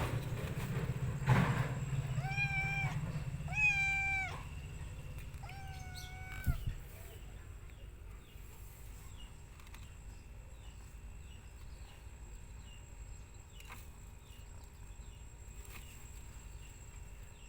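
A cat meowing three times, each call a held note of about half a second, with a couple of sharp knocks around them; the loudest knock comes just before the first meow. After about seven seconds it goes much quieter.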